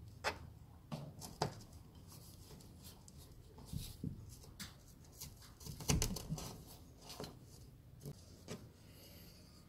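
Faint handling noises of camera cables and their plastic connectors being threaded through a hole in the ceiling: light rubbing, scattered small clicks, and a sharper knock about six seconds in.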